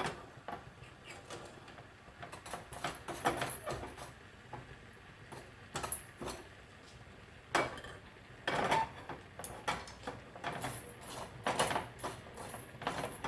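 A spoon clinking and scraping against a pan in scattered short knocks, more often in the second half, as a cooled jaggery mixture is stirred while being reheated.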